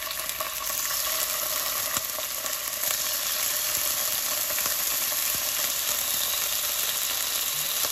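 Raw chicken fillet pieces sizzling in hot oil in a frying pan as they start to fry. The sizzle is a steady hiss that grows a little louder about three seconds in, as more pieces are laid in.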